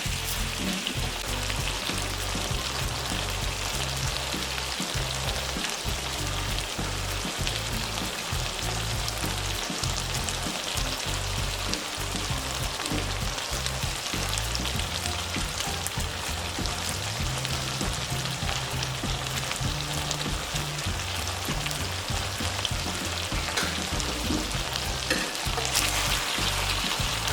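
Food sizzling steadily as it fries in hot oil in a pan, with background music.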